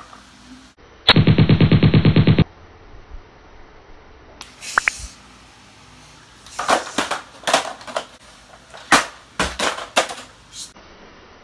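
A burst of rapid machine-gun-like fire, about ten shots a second for just over a second, starting about a second in. Later comes a loose series of separate knocks and thumps.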